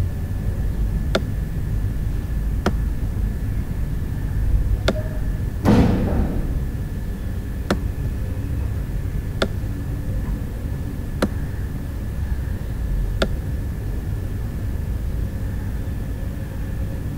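Computer mouse clicks, about seven spaced a second or two apart, over a steady low rumble with a faint high whine. About six seconds in comes one louder thump with a short falling whoosh.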